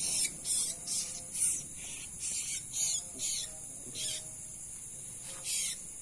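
A run of short harsh rasping bursts, about two a second, as a small bird is grabbed by hand among the grass. Under them runs a steady high chirring of night insects.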